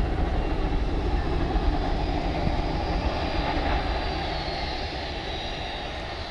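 Boeing 737-200's Pratt & Whitney JT8D turbofan engines running as the jet rolls along the ground: a dense rumbling roar with a thin high whine, slowly getting quieter.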